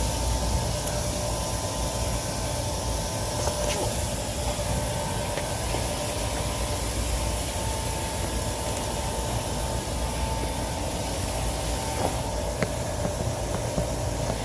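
Trane rooftop HVAC unit running steadily: a constant mechanical hum with two held tones over a low rumble and hiss.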